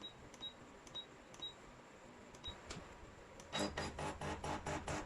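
Short high electronic beeps about twice a second for the first second and a half. Then, about three and a half seconds in, the HiBREW H10B coffee machine's pump starts as brewing begins: a hum with rapid, even clicking.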